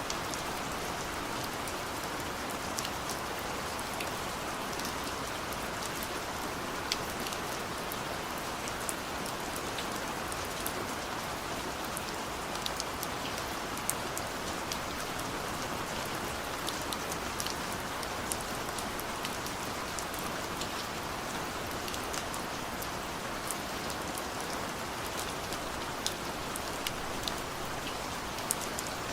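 Steady rain falling, a constant hiss with many scattered sharp drop taps on a surface.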